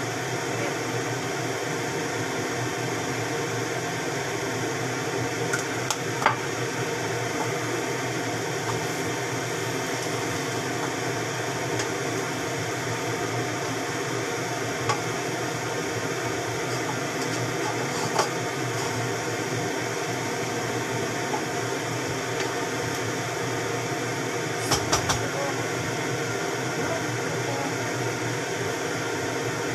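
A steady mechanical kitchen hum, with scattered light clicks and taps of a wooden spatula against a frying pan as noodles are stirred, including three quick taps near the end.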